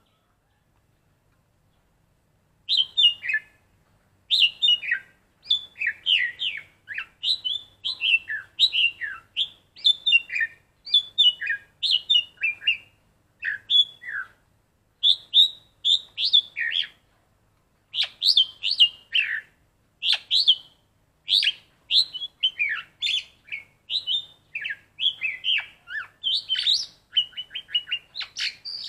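Black-collared starling singing: a long run of short, sharp notes that slide up and down, in quick phrases with brief pauses, starting about three seconds in. A fast burst of repeated notes comes near the end.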